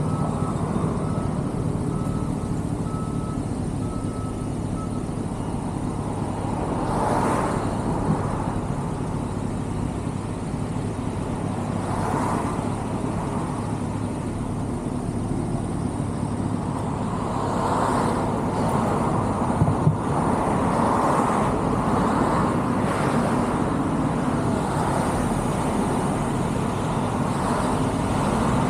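Road traffic in slow, congested city driving: a steady low rumble of engines and tyres, with a vehicle passing close by every few seconds, each swelling and fading over a second or two.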